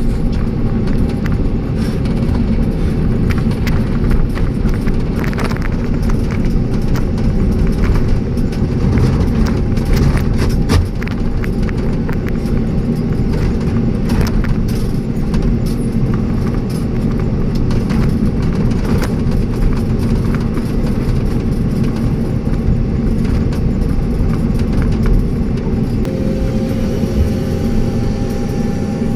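Hydraulic excavator's diesel engine running steadily under load, with scattered knocks and scrapes from the bucket working soil.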